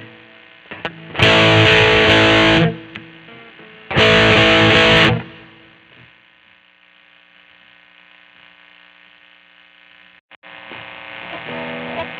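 Godin SD 24 electric guitar played with heavy distortion. Two loud chords are struck about a second apart and the second is left to ring out and fade. Quieter notes start again near the end.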